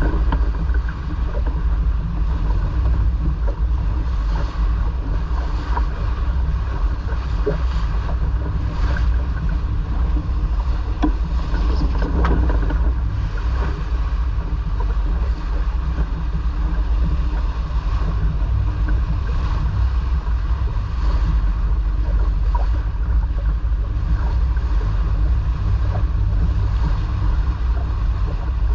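Steady wind buffeting the microphone on a sailboat underway, over water rushing and splashing along the hull.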